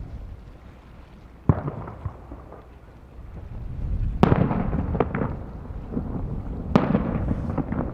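Aerial firework shells bursting: three sharp booms about a second and a half, four and six and three-quarter seconds in, the later two followed by shorter pops and crackle. Wind buffets the microphone with a low rumble throughout.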